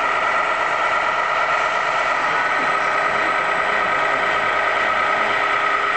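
Radio-controlled scale model trucks running, giving a steady, even drone with a high hum on top.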